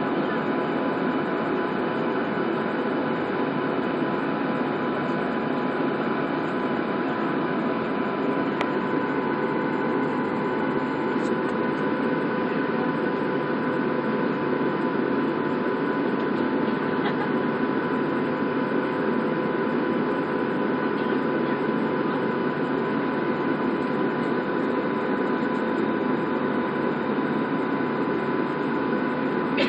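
Boeing 737 jet engines at low power heard from inside the cabin while the airliner taxis: a steady drone with a few held whining tones in it.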